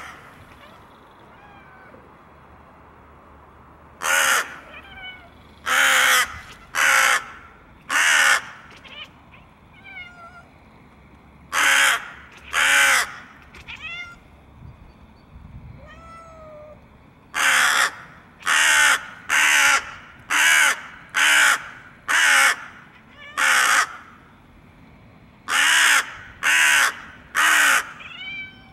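Hooded crow cawing from the trees overhead: loud, harsh caws come in series of four, then two, then a run of seven, then three, with pauses between the series.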